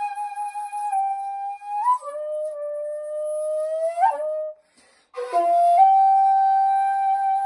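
Shakuhachi bamboo flute playing long held notes: a high note held for about two seconds, then a lower note that slowly bends upward and ends in a quick upward flick. After a short breath pause near the middle, the high note comes back and is held.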